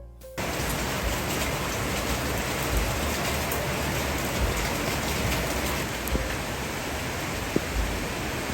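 Steady rainfall, an even hiss with scattered faint drop ticks, cutting in sharply about half a second in as a piano phrase ends.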